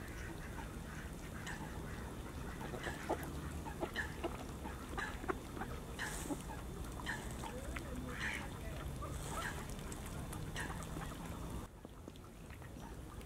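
Wild geese and ducks calling, a scatter of short honks and quacks over a steady low rumble. The sound drops away sharply near the end.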